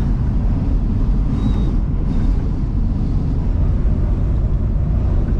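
Steady low rumble of a semi-truck's engine and road noise heard inside the cab, with strong wind buffeting the truck. A faint high whistle of wind comes through briefly about a second and a half in.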